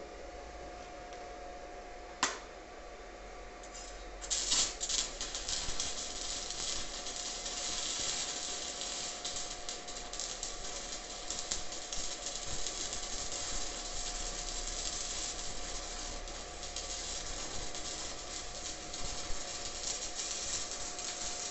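Stick (MMA) arc welding with a 2 mm electrode on a Daniu MINI MMA-200 inverter welder, running a vertical-up bead: the arc strikes about four seconds in and then crackles and sizzles steadily with fine irregular pops. A single sharp click comes about two seconds in, before the arc lights.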